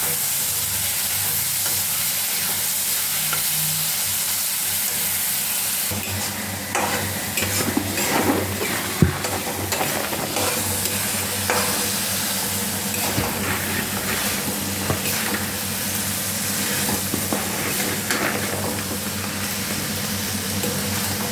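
Vegetables and spices sizzling as they fry in hot oil in a pan, a steady hiss. From about six seconds in, a spoon stirs and scrapes the pan in short strokes, with one sharp knock about nine seconds in.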